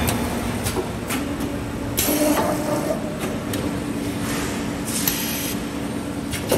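Automatic multi-tube bending machine running while it bends a bundle of heat-exchanger tubes: a steady hum with scattered clicks, and brief hissing about two seconds in and again about five seconds in.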